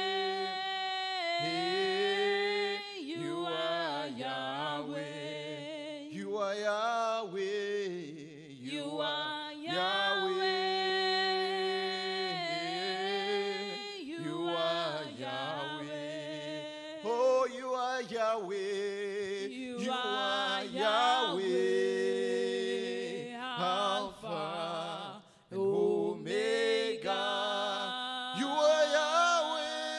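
Gospel worship song sung by a man leading into a microphone with a woman's voice singing along, with no instruments standing out.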